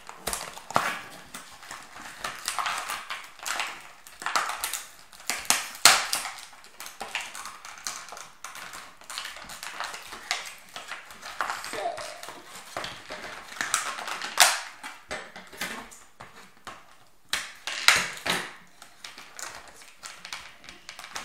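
Cardboard and plastic toy packaging being handled and pulled apart by hand: irregular rustles and crinkles with sharp clicks and snaps.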